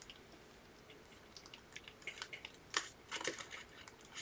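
Faint handling noises from piping frosting stars with a piping bag: scattered small clicks and crinkles, a few more after the first second.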